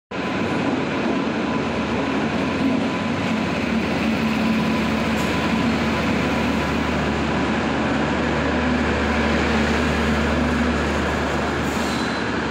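Passenger train arriving at a station platform, its coaches rolling past close by: a loud, steady rumble of wheels on the rails, with a low hum setting in a few seconds in.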